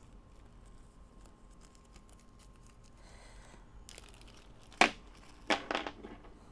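Faint handling sounds with a few light clicks, then two short, sharp crinkling sounds about five and five and a half seconds in, as pressure washer parts and packaging are handled.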